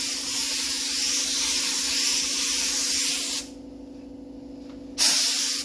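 Gravity-feed spray gun atomising gray automotive base coat onto wood: a steady hiss of air and paint that stops about three and a half seconds in, then one short burst near the end, finishing the second coat.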